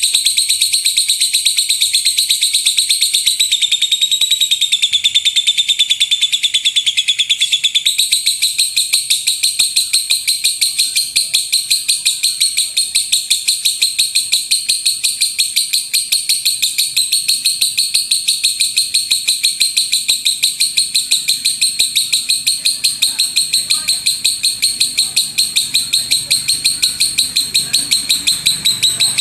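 Lovebird singing one long unbroken run of very fast, high-pitched chirps, a rapid-fire 'tembakan' song, dipping slightly in pitch a few seconds in.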